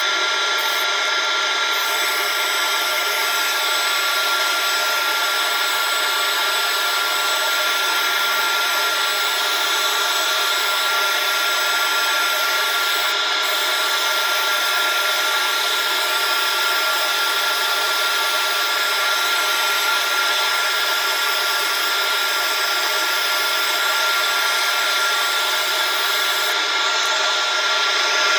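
Shop vac in blower mode forcing air through a dryer vent line and out of the outside vent opening: a steady, loud whine over rushing air that 'literally sounds like a jet engine'.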